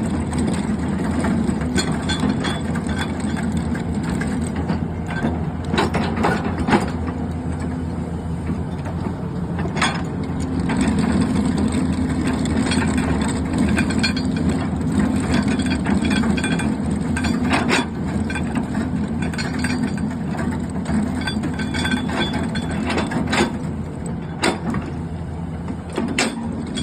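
Excavator with a hydraulic milling head attachment running: a steady, loud engine and hydraulic drone, with a scattering of sharp knocks and clicks from the working machine.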